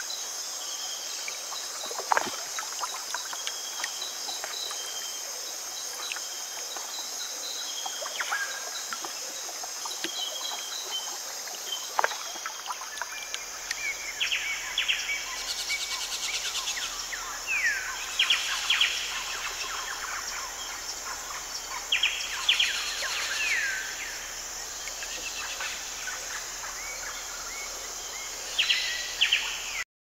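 Tropical forest ambience: a steady, high-pitched insect chorus with birds calling, giving short falling whistled notes from about halfway and a few sharp chirps near the end. A couple of sharp snaps sound in the first half.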